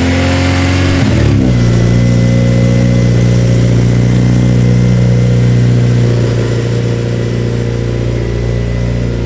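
Car engine running steadily, its pitch dipping and rising briefly about a second in, then holding even.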